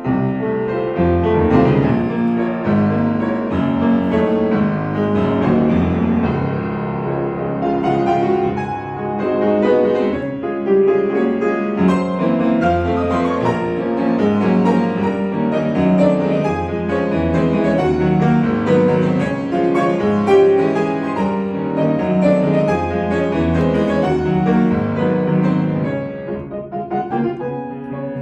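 Solo piano playing classical music: a continuous flow of notes and chords, with a brief softer passage near the end.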